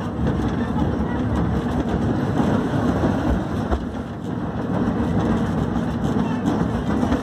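Vintage tram car running along the rails: a steady low rumble of the moving car and its wheels on the track.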